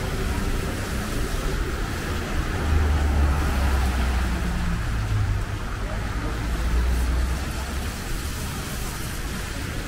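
City street traffic ambience. A motor vehicle's low engine rumble swells about three seconds in, holds for several seconds and fades near the end.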